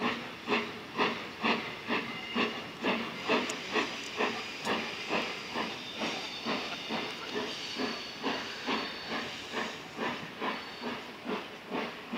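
BR Standard Class 4 4-6-0 steam locomotive no. 75078 pulling away with a train: sharp exhaust beats about two to two and a half a second, quickening slightly, with steam hissing between them. The beats grow a little fainter as the engine draws away.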